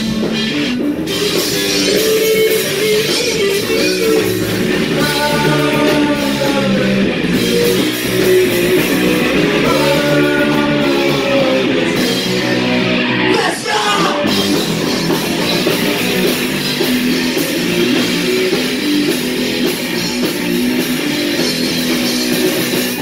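Live punk rock band playing loud: electric guitars and a drum kit, with a sung vocal line coming in a few seconds in and again around the middle.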